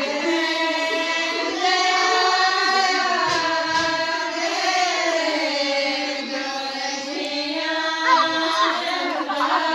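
A group of women singing together in unison, holding long notes.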